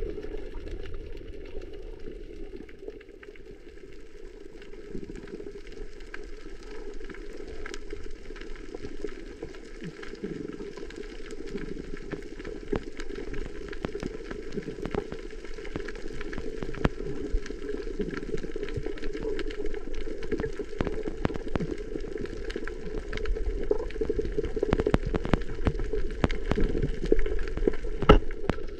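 Underwater reef ambience picked up by a camera under water: a steady muffled rush with many scattered sharp clicks and crackles, growing a little louder toward the end, with one sharper click just before the end.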